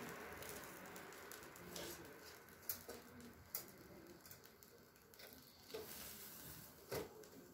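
Whole fish grilling in a wire grill basket over coals: a faint, fading sizzle with scattered pops and crackles, four or five of them sharper than the rest.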